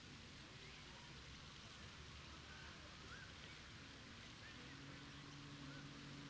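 Faint park ambience: the steady hiss of a water fountain, with a few faint bird chirps. A low steady hum comes in about four and a half seconds in.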